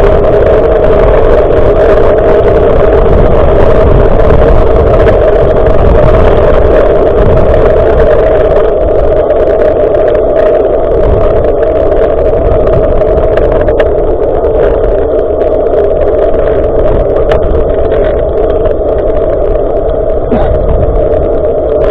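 A loud, steady rumble of wind and road noise from a moving bicycle, heard through an action camera's microphone, with a constant mid-pitched drone over it.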